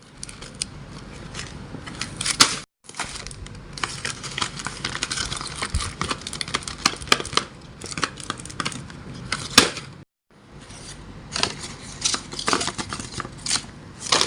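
Paper being handled: crinkling and rustling with many quick, sharp clicks and snaps, broken by two brief silences.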